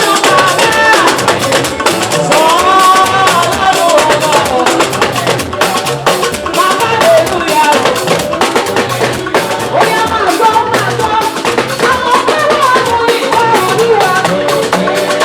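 Live gospel praise band playing: a voice singing a melody over steady, busy drums and percussion.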